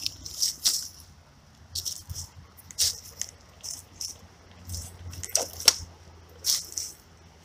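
Footsteps crunching through dry fallen leaves and twigs down a steep bank, uneven crackly steps about one or two a second, one louder crunch near the end.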